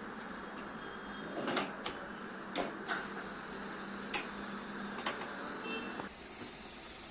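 Light clicks and knocks, about six of them, from hands working on computer parts and cables, over a steady hiss and low hum that stops abruptly about six seconds in.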